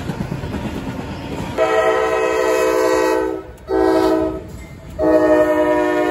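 Freight train rolling past with a steady rumble. Then, about a second and a half in, a diesel locomotive's multi-note air horn sounds three blasts: a long one, a short one, and a third long one that is still going at the end.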